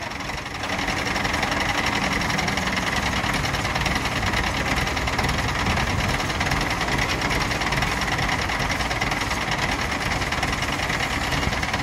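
Mobile crane's engine running steadily under load as it holds and lowers a slung forklift, with a steady high whine above the engine note.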